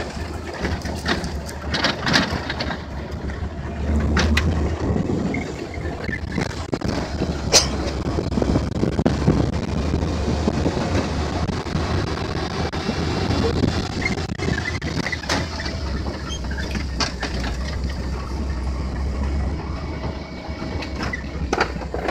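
Pickup truck driving along a dirt road, heard from the open bed: a steady low engine and road rumble, with scattered knocks and rattles as it bumps along. The sharpest knock comes about seven and a half seconds in.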